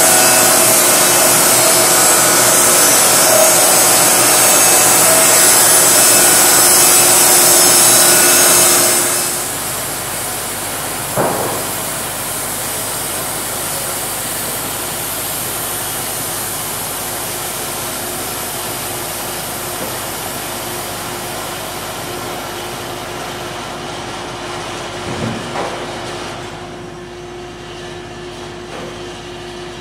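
Morgan edger's saws cutting along a board, a loud steady sawing noise that stops about nine seconds in. The machinery then keeps running with a quieter steady hum, broken by a sharp knock a couple of seconds later and a few lighter knocks near the end.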